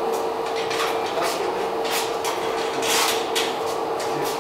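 Manual screen-printing press being handled: a string of short metal knocks and scrapes from its frame and screw clamps, the longest about three seconds in, over a steady hum.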